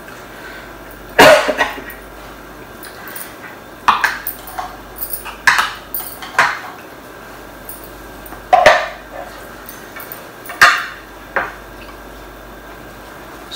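Spoons clinking and scraping against plates during a meal: about eight sharp clinks, a second or two apart.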